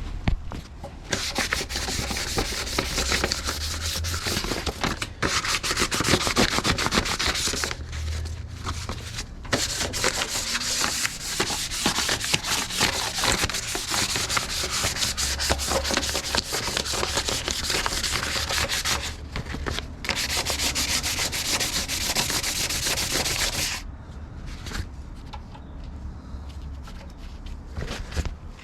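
Sandpaper rubbed by hand over the painted sheet metal of a car's engine bay, scuffing the old paint before repainting. It goes in quick back-and-forth strokes, with a few short pauses, and eases off near the end.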